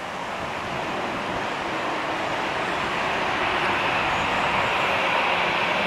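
Steady rushing noise of a moving vehicle, growing slightly louder.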